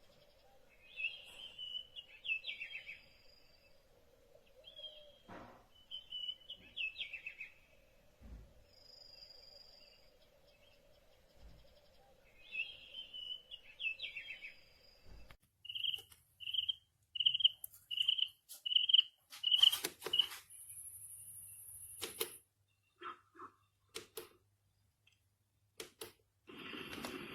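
Sunrise alarm clock playing a birdsong nature sound: repeated chirps over a steady hum. About halfway through the birdsong stops abruptly and six short, evenly spaced electronic beeps follow, a little under a second apart, then a few scattered clicks and a brief high tone.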